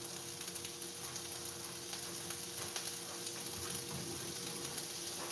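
Sliced beef kielbasa with red pepper and shallot sizzling in a frying pan: a steady hiss with many small crackles.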